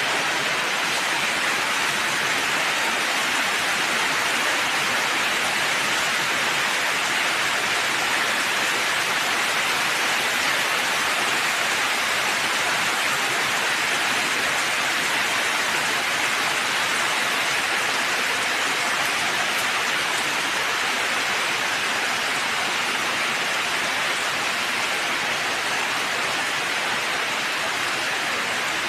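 Heavy monsoon rain falling in a steady, dense hiss that does not let up.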